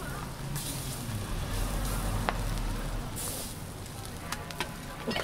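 Egg-and-vegetable patties and slices of bread sizzling on a flat street-food griddle, a steady hiss, with a few sharp clicks near the middle and toward the end.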